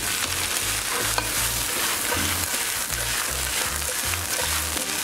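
Spinach and sliced garlic sizzling in hot olive oil in a frying pan, turned with metal tongs that click against the pan now and then.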